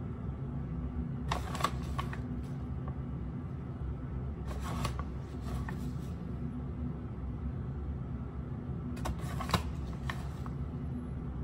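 A paper flour bag rustling in three short bursts, with a few light clicks, as flour is tipped and spooned into a plastic bowl on a kitchen scale. A steady low hum runs underneath.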